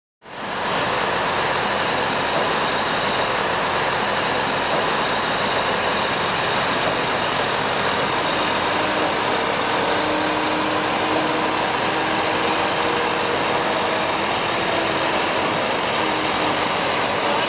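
Heavy diesel excavator engine running steadily: a constant, even engine noise with a faint hum, cutting in abruptly just after the start.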